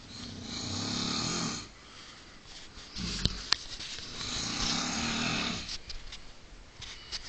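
A sleeping man snoring: two long snores about three seconds apart, the second longer, with two sharp clicks near its start.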